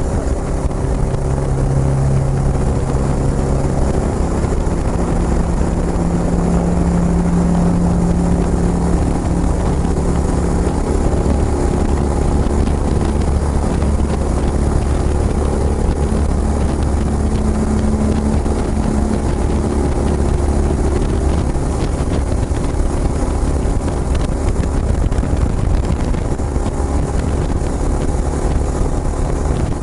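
Kawasaki Estrella's single-cylinder engine running through a Yamato aftermarket muffler while the bike is ridden, its pitch stepping up in the first few seconds and wandering with road speed, over a steady rumble of wind on the microphone.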